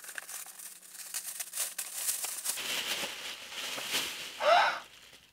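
Tissue paper crinkling and rustling as a gift wrapped in it is pulled open by hand. About four and a half seconds in, a short rising vocal sound, then it goes quiet.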